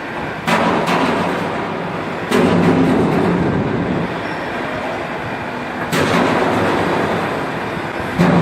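Heavy bangs, five in all, the loudest about two seconds in, about six seconds in and near the end. Each is followed by a rumbling that slowly dies away.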